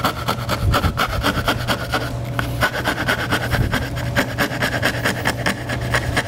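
Jeweler's saw cutting a cope through painted wooden chair rail molding: quick, even back-and-forth strokes of the fine blade rasping through the wood.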